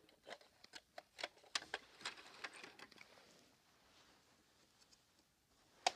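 Faint clicks and taps of toy cars and a plastic toy truck being handled, scattered through the first three seconds, then quiet but for one sharp click near the end.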